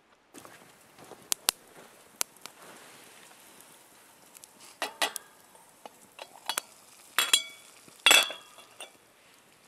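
Metal utensils and camp pots clinking and clattering in irregular sharp knocks, starting with a fork against a cast-iron pot. The loudest clatters come about seven and eight seconds in.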